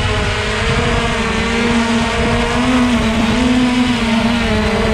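Steady hum of a remote-controlled aircraft's small motor and propeller, its pitch wavering slightly as it flies, over a low rumbling noise.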